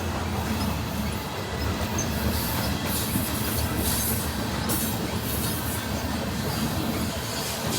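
CSX freight train cars rolling past on the rails with a steady running noise of wheels on track. Brief high wheel squeals flare up about three to five seconds in.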